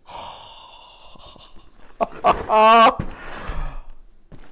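A man's long breathy exhale, then a drawn-out, wavering 'ooh' of delight lasting about a second.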